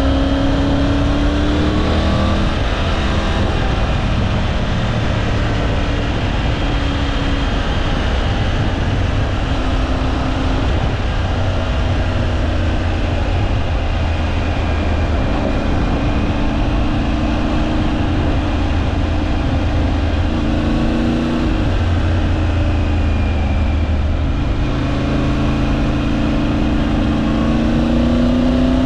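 Triumph Tiger 900 Rally Pro's three-cylinder engine running under a rider on the move, its pitch rising and falling several times as the throttle and revs change, over a steady rush of wind.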